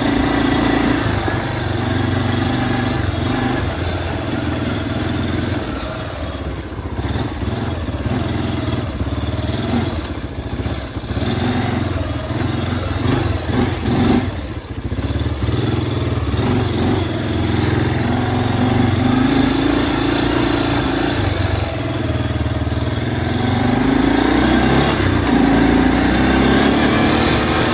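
Yamaha Big Bear 350 ATV's single-cylinder four-stroke engine running under way. The engine note eases off and turns uneven through the middle, then climbs in pitch as it accelerates twice in the later part.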